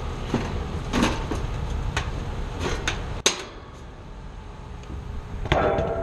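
A series of sharp knocks and clicks, the sharpest about three seconds in, with a clatter near the end, over a steady low rumble.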